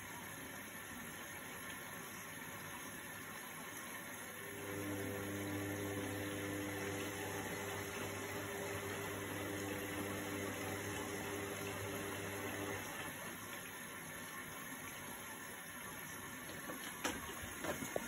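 Indesit IWC71352 front-loading washing machine running with a load of towels: a steady rush of water, with a low electric motor hum that starts about four seconds in and stops about eight seconds later. A couple of light knocks near the end.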